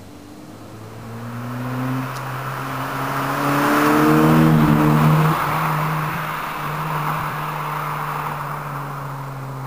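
Honda Fit GD3's four-cylinder engine heard through a Mugen dual-silencer exhaust, pulling under acceleration. Its pitch climbs and steps back down more than once, and it is loudest about halfway through before dropping away and settling to a steadier drone.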